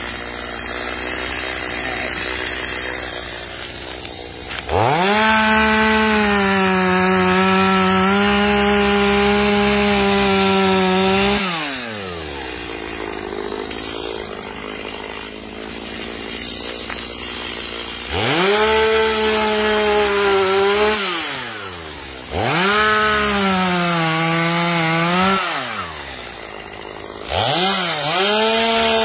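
Stihl MS250 two-stroke chainsaw idling, then opened up to full throttle four times to cut wood. The first cut runs about six seconds, and the engine drops back to idle between cuts.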